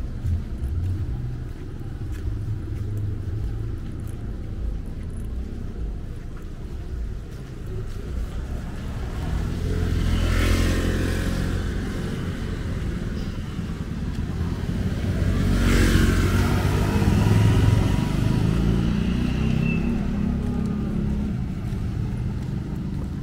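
Street traffic: motor vehicles running steadily, with two passing close and louder, about ten seconds in and again about sixteen seconds in.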